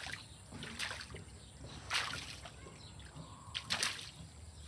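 A dog splashing in a shallow muddy pool as it paws and lunges at the water after fish. There are three main splashes: about a second in, two seconds in, and nearly four seconds in.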